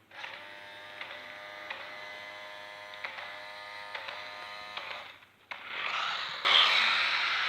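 The small electric motor of a radio-controlled LEGO Technic 8378 Red Beast truck, buzzing steadily for about five seconds. After a brief pause it gives way to a louder rushing, hissing noise.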